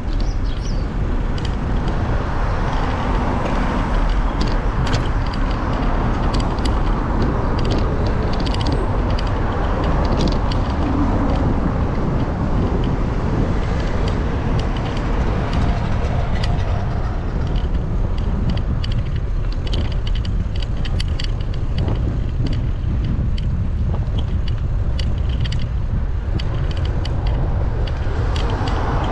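Steady low wind rumble on a bike-mounted action camera's microphone while cycling along a paved path. Scattered light clicks and rattles run through it.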